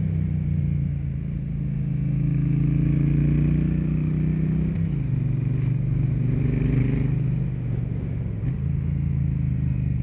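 Triumph Bonneville T100's 900 cc liquid-cooled parallel-twin running under way through a Zard X-pipe decat on its stock silencers, a steady exhaust note whose pitch drops about five seconds in.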